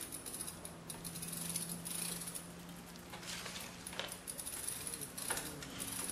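Motorized bicycle giving a faint steady hum with light rattles and scattered clicks.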